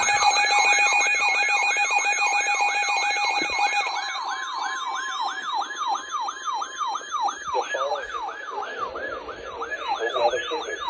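Emergency alert attention signal: an electronic siren yelping, with falling sweeps about three to four times a second. Steady high tones run under it for the first few seconds, and it cuts off suddenly at the end.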